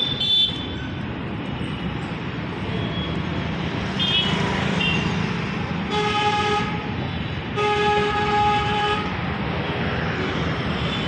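Street traffic running steadily, with a vehicle horn honking twice: a short blast about six seconds in and a longer one just after.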